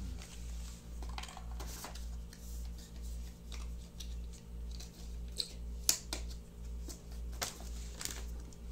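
Small clicks and light rustling of a cardboard box and plastic packaging being handled while unboxing a fitness band, one click about six seconds in standing out loudest, over a low hum that pulses about twice a second.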